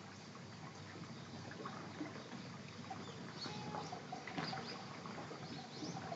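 Orange tabby cat eating canned food from a bowl: faint chewing with many small clicks.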